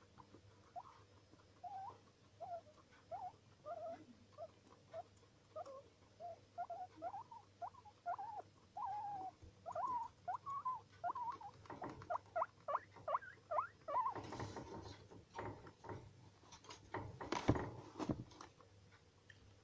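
Guinea pig giving a long run of short squeaks, two or three a second, coming closer together toward the middle. Near the end come two louder spells of rustling and scraping in the wood-shaving bedding and against the wooden hide.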